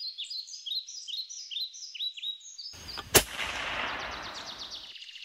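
Birdsong of a repeated, quick downward chirp, with a single sharp gunshot about three seconds in; a rush of noise starts just before the shot and fades away about two seconds later.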